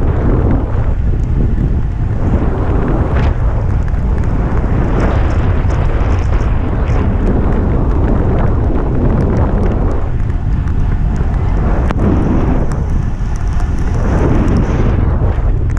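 Heavy wind noise buffeting the microphone of a camera riding on a road bike at race speed.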